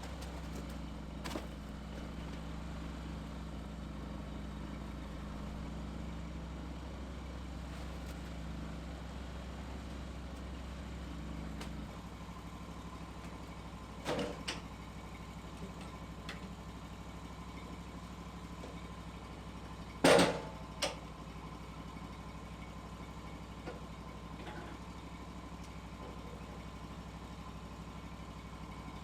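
A steady low mechanical hum that changes slightly about twelve seconds in, with a few short knocks, the loudest about twenty seconds in.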